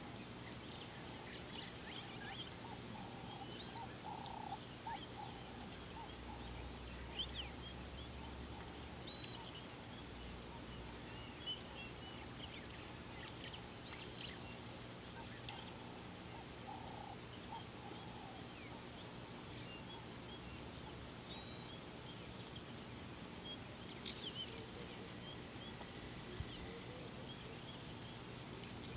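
Wild birds chirping and whistling, with many short high calls scattered throughout and a few lower calls now and then, over a faint steady hum.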